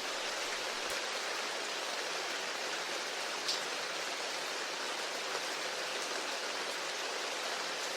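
Steady rain: an even hiss of falling rain, with one faint drop-like tick about three and a half seconds in.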